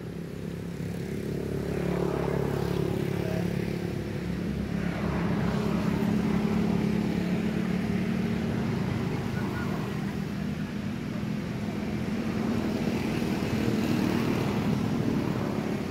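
An engine droning steadily, growing louder about two seconds in and easing off near the end, like something passing by.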